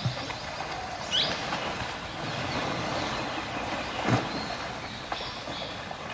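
Asian elephant splashing and wading in a shallow pond: water sloshing under a constant noisy wash, with a heavier splash about four seconds in as it drops into the water.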